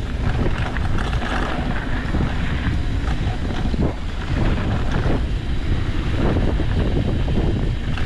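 Wind rushing over the microphone of a mountain bike going fast downhill, over a steady rumble of tyres on the trail, with the bike clattering over rough ground several times.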